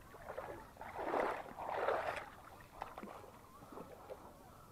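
Water splashing in the shallows at the lake's edge: two short splashes about a second apart, then lighter sloshing and small knocks.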